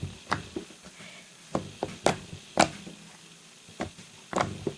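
Freshly made clay slime being folded and squeezed by hand, giving off about ten sharp, irregularly spaced pops and clicks.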